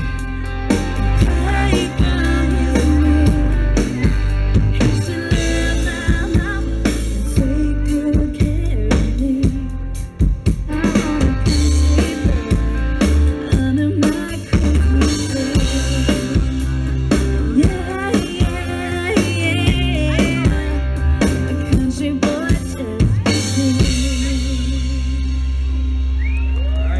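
Live band playing a song: drum kit, bass and guitar with a woman singing. Near the end the drums stop and the band holds one sustained closing chord.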